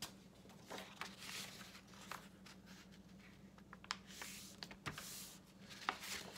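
Sheets of paper rustling and sliding over one another as they are laid on top of each other, in soft swishes with a few light taps.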